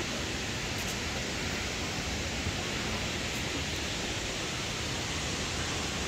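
Steady, even rushing of the Kravice waterfalls.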